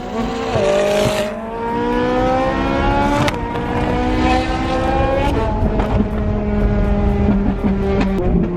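Sports car engine accelerating hard through the gears: the pitch climbs, drops back at each upshift, about three times, then settles to a steady cruise for the last couple of seconds.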